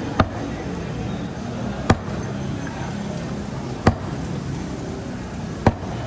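A cleaver chopping through a parrotfish fillet into a round wooden chopping block: four sharp chops, about two seconds apart.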